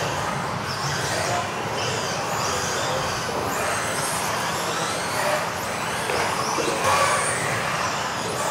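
Several electric RC off-road buggies racing round an indoor track: high-pitched motor whines that rise and fall as the cars accelerate and brake, over a steady wash of tyre and drivetrain noise echoing in a sports hall.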